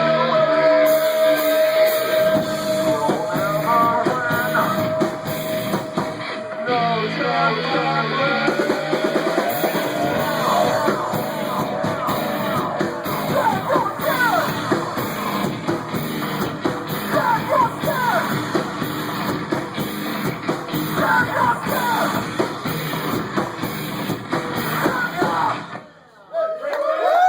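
A live punk rock band playing loud distorted electric guitars and drums, with singing. A single note is held for about the first six seconds, and the song stops abruptly near the end.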